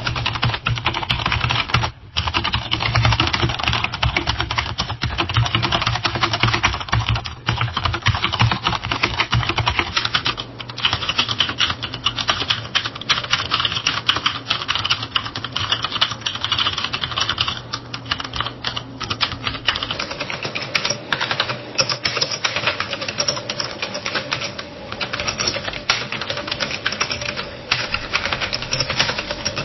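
Fast, continuous typing on a computer keyboard: a dense run of key clicks. The sound changes about a third and two-thirds of the way through, as one typing recording gives way to the next.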